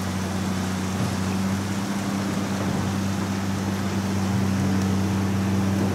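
Fast muddy floodwater rushing through a river channel narrowed by steel sheet piles, over a steady low mechanical hum.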